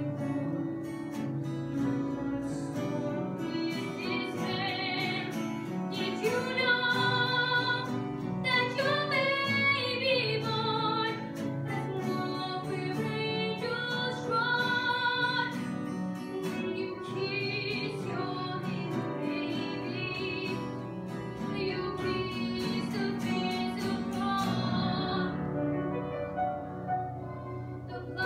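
Young women singing a Christmas hymn in long, wavering notes over instrumental accompaniment.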